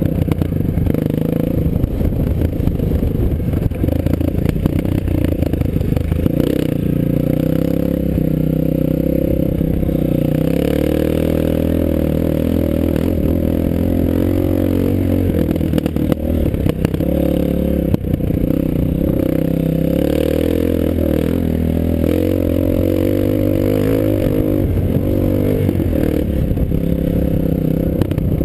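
Dirt bike engine running under load on a rough dirt trail, its pitch rising and falling as the rider works the throttle. Rattle and clatter from the bike run through it.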